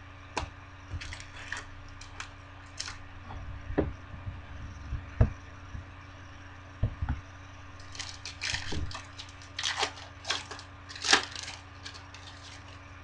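Trading cards and a foil card pack being handled: scattered light taps and clicks, then crinkling of the foil wrapper from about eight seconds in, loudest near the end.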